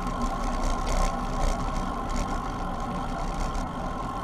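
Steady rushing wind noise on an action camera's microphone while riding a bicycle, strongest in the low rumble.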